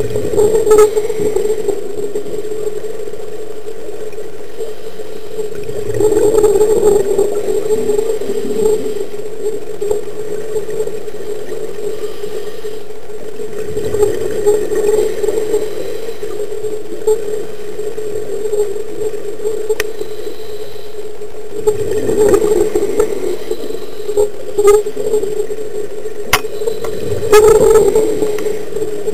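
Scuba regulator exhalations heard underwater: about five or six rushing bubble bursts, each a second or two long and several seconds apart, over a steady hum.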